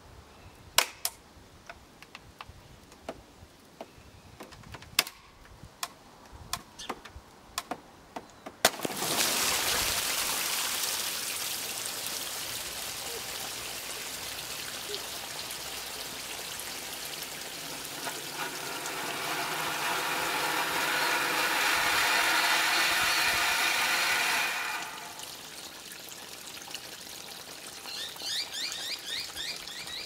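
An inner tube pumped full of water inside a strapped-up microwave oven: a run of sharp cracks and creaks as the casing strains, then about nine seconds in the tube bursts and water rushes out through the split casing, swelling before it cuts off sharply about 25 s in. Trickling and dripping follow near the end.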